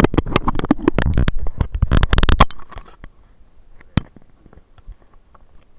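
Handling noise from a body-worn action camera: fingers and clothing rubbing and knocking against the casing and microphone, loud for about two and a half seconds. After that it drops to faint rustling, with a single sharp click about four seconds in.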